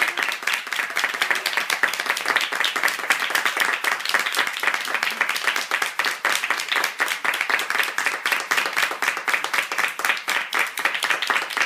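A small group of about ten people, adults and children, clapping their hands together in sustained applause, a dense stream of fast claps.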